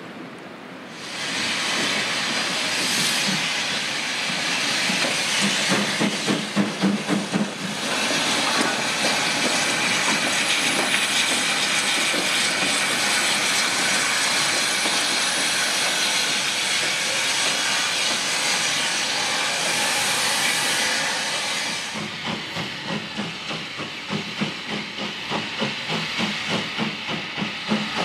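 Steam locomotive working: a loud steam hiss starts about a second in over its exhaust beats, then cuts off suddenly about three-quarters through, leaving steady exhaust chuffs of about two to three beats a second.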